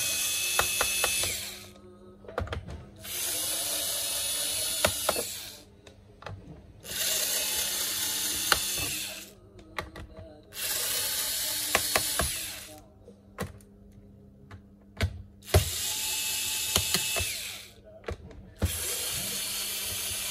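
Small cordless electric screwdriver whirring in six runs of about two seconds each, backing screws out of a laptop's bottom case. Light clicks and taps fall in the pauses between runs.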